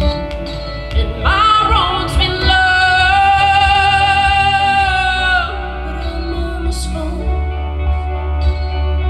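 A woman singing live into a microphone over a steady instrumental backing. About a second in she slides up into a long held high note with a slight vibrato, which ends about five and a half seconds in, then carries on more quietly.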